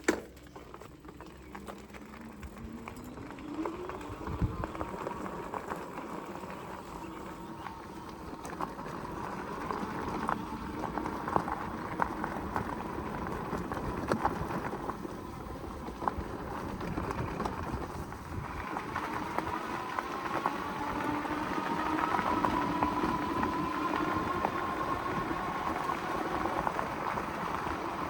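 Ariel Rider Grizzly electric bike being ridden: the hub motor whines, rising in pitch as the bike speeds up and again about two-thirds of the way in, over the noise of tyres and wind.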